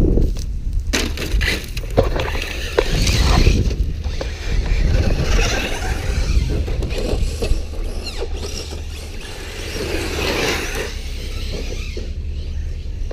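Radio-controlled trucks running on a loose dirt track: tyres scrabbling and throwing dirt, with scattered clicks of grit and small stones, loudest about three seconds in and again about ten seconds in. A steady low rumble of wind buffets the microphone.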